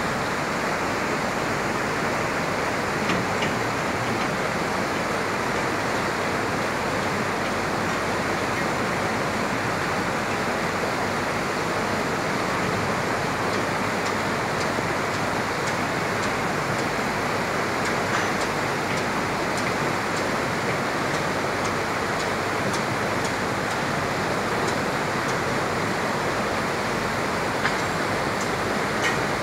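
Shallow river rushing over rocks and riffles: a steady wash of water noise, with a few faint clicks here and there.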